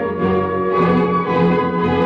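Orchestral classical music with bowed strings playing sustained notes.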